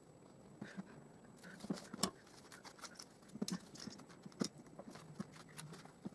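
Scattered light clicks, taps and rustles of hand work: small plywood jaw pieces being fitted against a silicone gun's rod and a small bar clamp being set on them.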